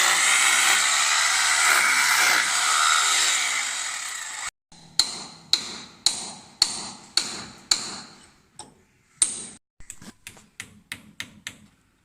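A power tool running with a loud, even noise that cuts off suddenly about four and a half seconds in, followed by hammer blows, about two a second, quickening to about four a second near the end.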